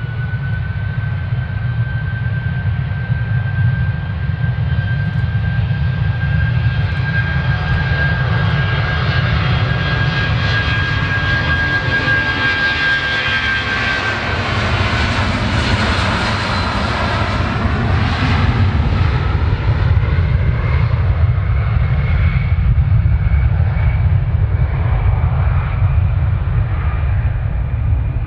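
Jet airliner passing close, its engine whine rising at first and then holding steady, then dropping in pitch as it goes by about halfway through, over a continuous deep rumble that stays loud to the end.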